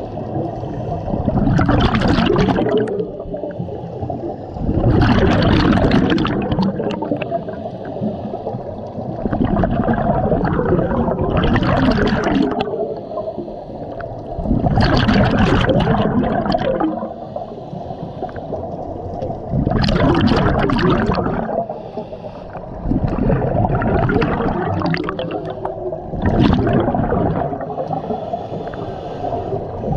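Scuba diver breathing through a regulator underwater. A loud rush of exhaled bubbles comes about every 3 to 4 seconds, with low gurgling between breaths.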